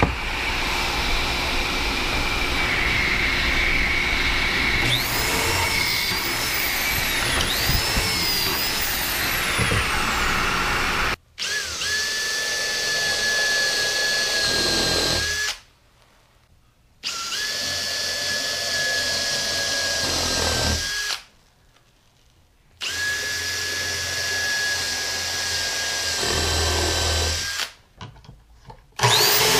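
Power drills boring into 2x4 lumber, including a pocket-hole bit run through a jig. The drilling comes as continuous running at first, then in several runs a few seconds long with short breaks between them, each run holding a steady high motor whine.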